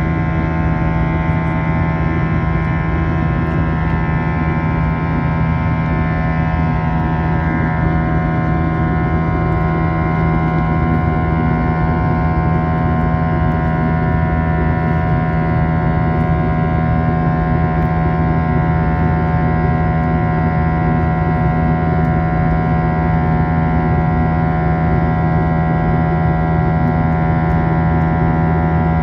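Airbus airliner cabin noise in flight: a steady drone of jet engines and airflow. It carries several steady tones, a low hum being the loudest.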